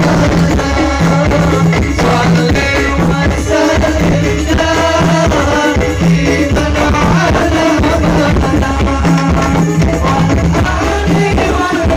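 Loud live sholawat music over a PA sound system: singing over a band with a steady pulsing bass beat.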